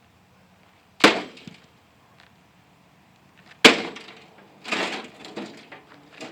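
Two hard blows smashing into a microwave oven, about a second in and a louder one past the middle, followed by crunching and rattling of its broken casing and inner parts.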